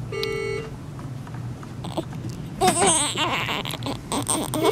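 Newborn baby crying in short wavering wails from about two and a half seconds in. A short electronic beep sounds near the start and again at the very end.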